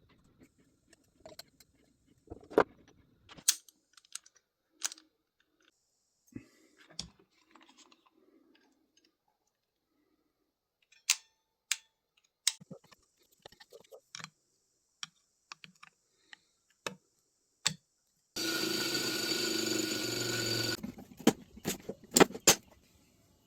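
Scattered light clicks and knocks of tools and machine parts being handled. About three-quarters of the way through, a small motor runs for a couple of seconds and stops abruptly, followed by a few more clicks.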